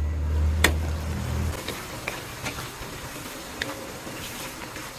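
A glass pan lid is lifted with a sharp clack, then a wooden spatula stirs pork, liver and vegetables in a nonstick pan, giving light scattered taps over a steady hiss of simmering. A low hum cuts off about a second and a half in.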